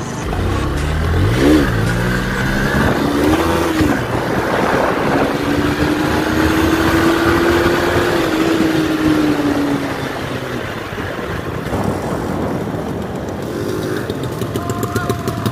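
Motorcycle engine revving up and shifting twice, then running at a steady cruise with wind noise, easing off about ten seconds in as the bike slows.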